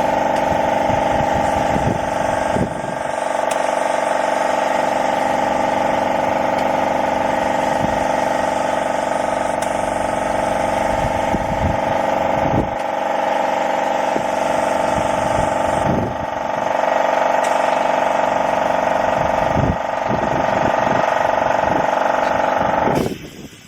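Gentilin C330/24 air compressor running steadily with a constant mechanical hum, under the hiss of air through a 3M PPS 2.0 HVLP spray gun as paint is sprayed. It all cuts off suddenly near the end.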